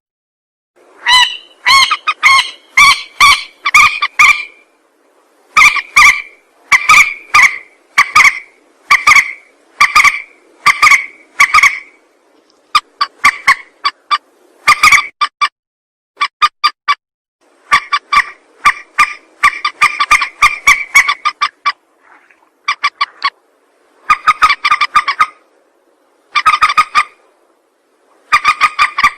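Recorded lure call of a mandar, a rail or swamphen: short call notes repeated rapidly in runs of several seconds, separated by brief silent pauses. The call is played to draw mandar birds in.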